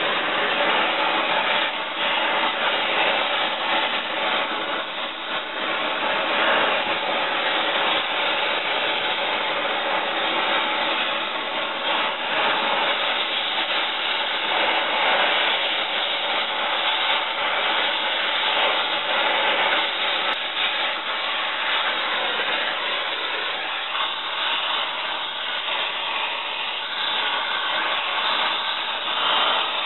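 Oxy-acetylene torch with a rosebud heating tip burning with a steady hiss, heating rusted bolts to free them.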